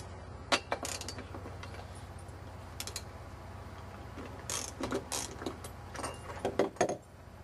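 Ratchet wrench with a 3/4-inch socket clicking in several short runs as it is worked back and forth to loosen the flywheel nut on a Tecumseh 4.5 HP lawn mower engine.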